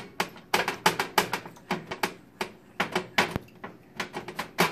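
Rapid, irregular clicking and tapping of a metal baking pan knocking on the stovetop as hands press sticky cake-mix dough down into it to form a crust.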